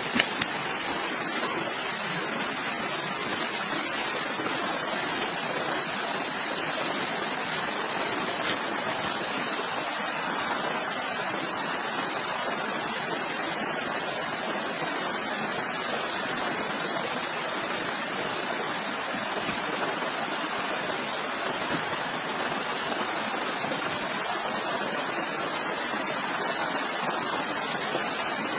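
Insects (crickets or cicadas) keeping up a steady, high-pitched chorus that starts abruptly about a second in, over a steady rushing background noise.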